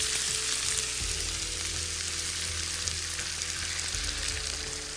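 Browned chicken pieces with onion and garlic sizzling in a hot frying pan as water is poured in from a measuring jug; the sizzle slowly dies down.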